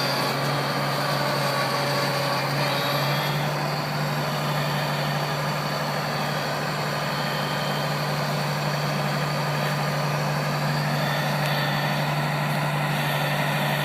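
Diesel engine of a New Holland TV-140 bidirectional tractor running steadily at an even speed.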